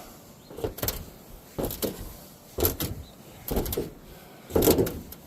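Footsteps on a metal pan roof, about one a second, each a short scuff or thud.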